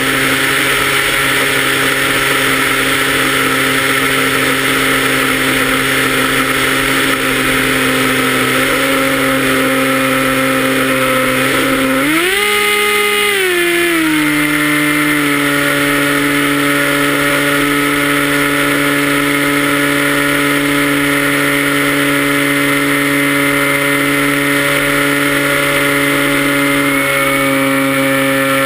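Electric motor and propeller of a Zephyr FPV flying wing, heard through the onboard GoPro: a steady whine over a rush of wind. About twelve seconds in the pitch rises as the throttle goes up, holds for a moment, then drops back.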